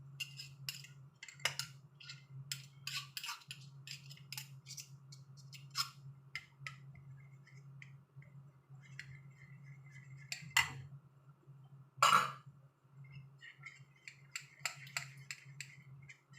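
Spoon clinking and scraping against a dish in a string of light, irregular clicks, with two louder knocks about ten and twelve seconds in, over a steady low hum.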